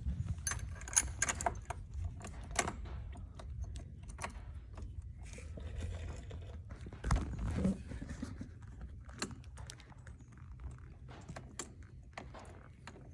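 Small metal parts and tools clinking and rattling while a bracket and its bolt are worked into place, with a louder knock about seven seconds in.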